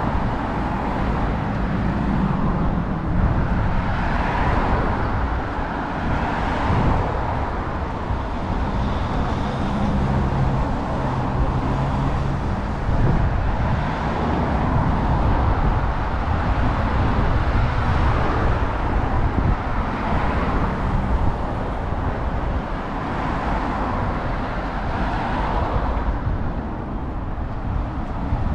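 City street traffic: cars and other motor vehicles driving past on a busy road, a continuous wash of engine and tyre noise that swells and fades as several vehicles pass.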